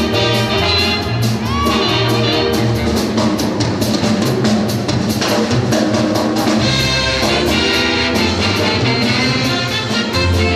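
Upbeat brass-band music with a steady beat, trumpets and trombones to the fore.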